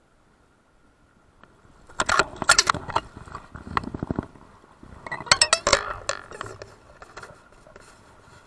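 Two bursts of sharp clicks, knocks and clatter, about two seconds in and again about five seconds in, as a hooked brown trout is grabbed by hand in shallow stream water.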